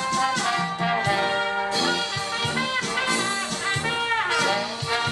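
Live oompah band playing brass music, with trumpet and trombone leading and a falling glide about four seconds in.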